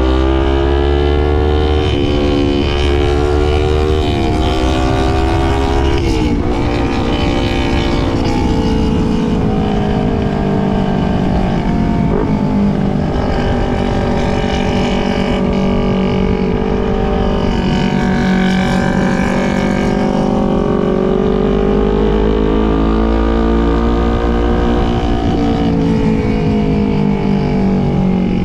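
Motorcycle engine under way, its pitch rising and falling again and again as the revs climb and drop with throttle and gear changes.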